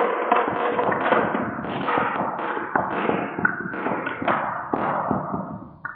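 Many marbles rolling and clattering down a marble run's wave slope, a steady rolling rush full of rapid clicks and knocks, dying away near the end.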